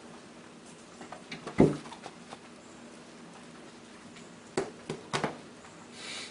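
A cat swatting at a mirror, its paw hitting the glass and frame. There is a quick cluster of knocks with one loud thump about a second and a half in, then three sharp taps near the end.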